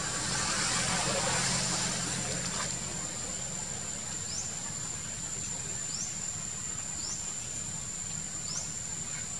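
Outdoor forest ambience: a steady high-pitched drone, typical of insects, with a short rising chirp repeating about every second and a half, over a low hum. A rushing noise swells over the first two to three seconds, then fades.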